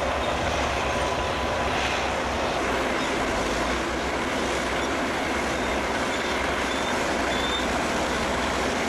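Heavy bulldozer machinery running steadily: a continuous, even engine-and-machine noise.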